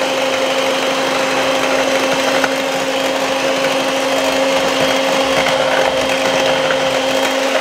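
Electric hand mixer running steadily at one speed, its beaters whisking thin pancake batter in a plastic jug: a constant motor hum with a whine above it.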